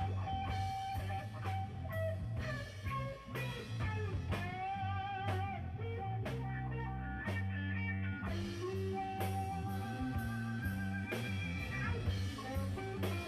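Background music: a blues-rock style tune led by a guitar playing bending, wavering notes over a steady beat.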